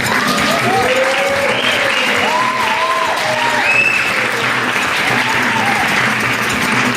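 Audience applauding and cheering, with several voices calling out in short rising-and-falling whoops over the clapping.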